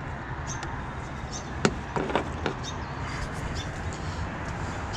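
A few sharp clicks and knocks in quick succession around the middle, over a steady rushing background noise, as parts of the car are handled during an oil change.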